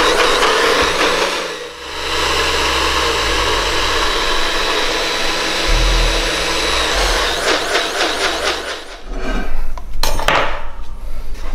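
NutriBullet blender running, grinding thick protein pancake batter, with a brief break about two seconds in. The motor sound pulses near the end and stops, followed by a few knocks.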